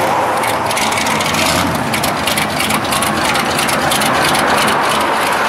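Engine of a lowered compact pickup truck running steadily as the truck pulls slowly out onto the road.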